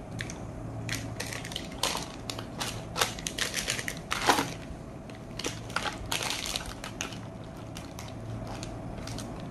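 Plastic wrappers of ice cream bars crinkling and rustling in irregular crackles as the wrapped bars are handled and rummaged out of a box.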